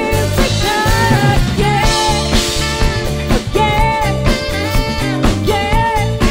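Live band playing a groove song: drums, bass guitar and keyboards with saxophone, and a woman singing the lead melody.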